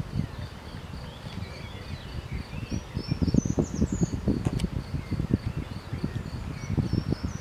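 Insects chirping in a steady, evenly spaced high pulse, with a few short bird chirps about three seconds in. An uneven low rumble of wind on the microphone grows louder from about halfway through.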